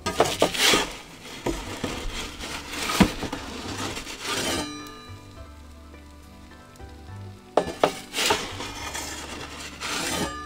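A metal pizza peel scraping and clicking against the baking stone of an Ooni pizza oven as the pizza is turned. It comes in two bouts: a longer one of about four and a half seconds at the start, and a second of about two and a half seconds near the end.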